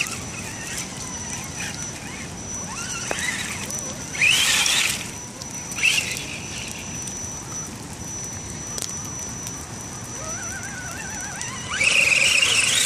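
Axial Wraith and SCX10 RC crawler trucks' electric motors whining as the trucks drive through mud. A steady high whine sits underneath, and louder revving bursts rise in pitch about four seconds in, again about six seconds in, and near the end.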